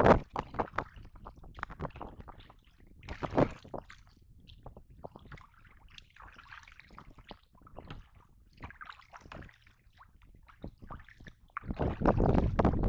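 Water sloshing and splashing in a few separate bursts, at the start, about three seconds in, and near the end, with small knocks in between.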